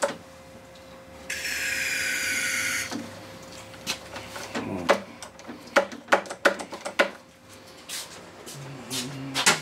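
A hiss of Tri-Flow lubricant sprayed from an aerosol can into the outboard's powerhead, about a second and a half long. It is followed by a run of sharp metallic clicks and taps of hand tools on the engine.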